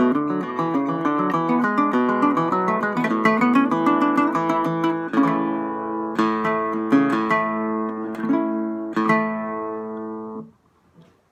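Requinto jarocho, a small four-string Veracruz guitar, picked with a plectrum: a fast run of single-note son jarocho melody that slows about halfway through into a few separate struck notes left to ring, then is damped to a sudden stop near the end.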